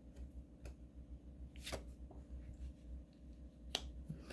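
A few light clicks and slides of stiff, new tarot cards being handled and laid down, over a low steady room hum.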